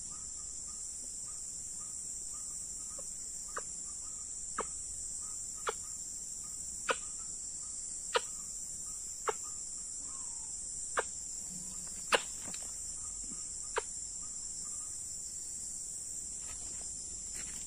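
Steady high-pitched chirring of crickets and other insects, with a sharp click about once a second through the middle of the stretch.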